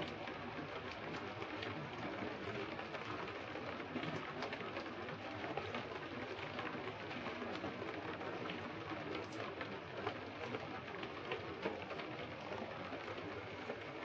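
Heavy rain falling on the sea: a steady hiss of drops with many small splashes scattered through it.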